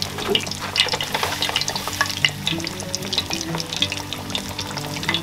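Powder-coated whole yellow perch deep-frying in hot oil in a cast-iron skillet: steady crackling and popping, with a second fish lowered into the oil partway through.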